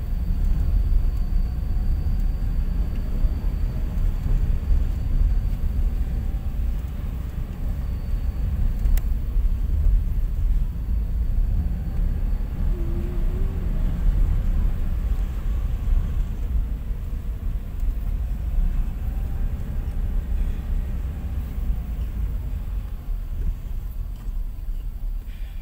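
Inside a moving car's cabin: steady low rumble of the engine and tyres on the road while driving slowly.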